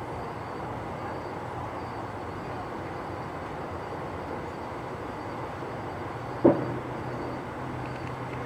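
Steady outdoor rumble with a single sharp, loud bang from a firework about six and a half seconds in.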